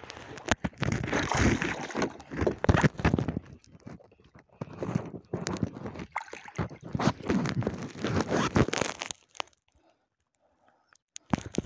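Irregular rustling, scraping and knocks of handling on a plastic kayak, with water sloshing as a traíra held in a fish lip grip is lowered over the side into the water.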